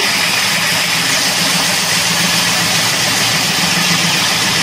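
Electric granite floor grinding machine running steadily, its motor turning the grinding plate against the concrete floor with an even hum under a dense grinding hiss.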